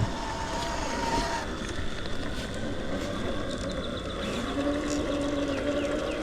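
Electric motor and gears of an RC rock crawler whining as it drives, with a steadier, clearer whine setting in about four seconds in.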